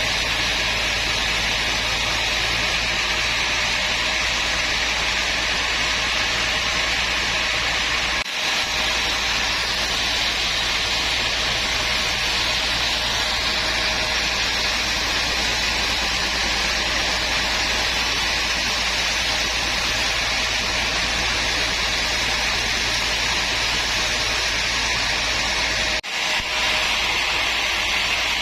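Woodworking power machine running steadily with a dense, hissing whine. There are two very brief drops, about 8 seconds in and near the end.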